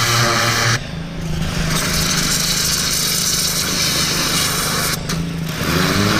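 A 2400 PSI pressure washer's engine running while its high-pressure jet hisses against the dirt bike. The spray cuts out briefly about a second in and again about five seconds in, and the engine note shifts each time before the spray resumes.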